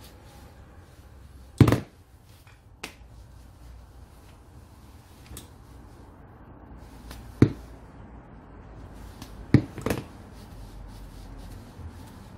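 Diagonal side cutters snipping electrical wire: several sharp, separate snips, the loudest about two seconds in and two close together near the end.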